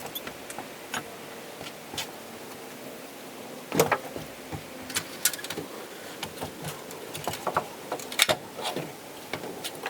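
Irregular knocks and clicks, as of tools and lumber being handled, over a steady background hiss; the loudest knocks come about four seconds in and just after eight seconds.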